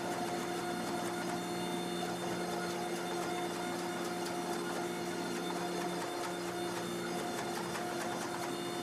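Hydraulic forging press running steadily under load as it squeezes a hot steel billet, its pump motor giving a constant hum. The lowest note of the hum drops out briefly about six seconds in.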